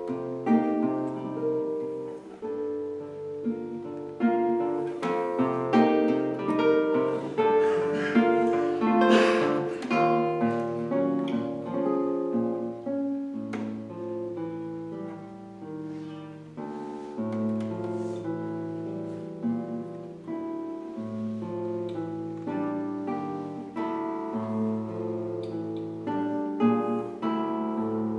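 Classical guitar played fingerstyle: a plucked melody over held bass notes, growing louder from about five to ten seconds in, then softer.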